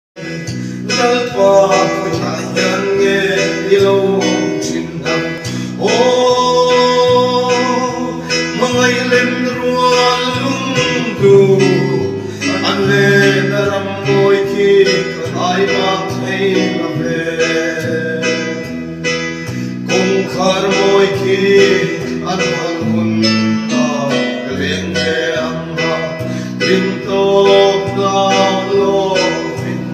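Two men singing a song together, accompanied by an electronic keyboard with sustained chords and a moving bass line.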